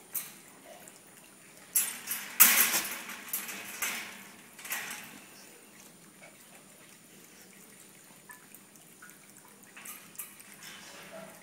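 Short bursts of scuffling and rattling from animals moving in a wire cage, the loudest about two and a half seconds in, then a few faint clicks.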